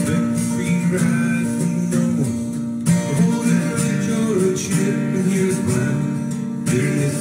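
Strummed acoustic guitar playing an instrumental passage of a song.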